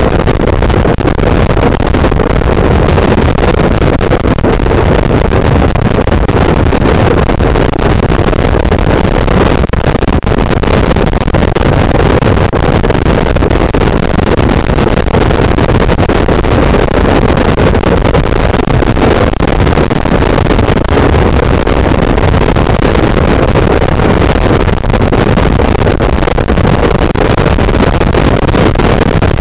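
Riding scooter: steady, loud wind noise on the camera's microphone mixed with the scooter's engine running.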